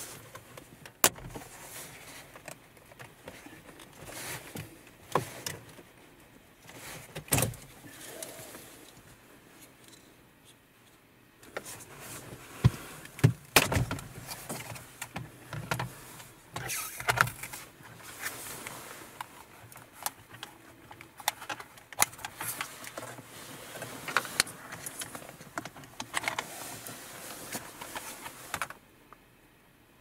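Plastic dashboard trim being pried out of a 2020 Toyota Corolla by hand: retaining clips unsnapping in a string of sharp clicks and snaps over plastic rubbing and scraping as the center bezel and climate control panel come free.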